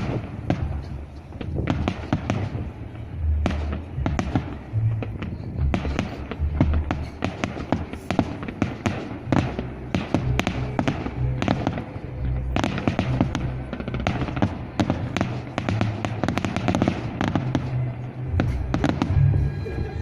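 Japanese-style aerial fireworks bursting and crackling in rapid succession, many sharp cracks close together, over background music with a low bass line.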